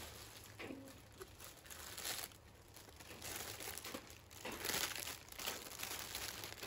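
Plastic carrier bag and clear plastic wrapping crinkling and rustling in irregular bursts as items are pulled out by hand, loudest about halfway through.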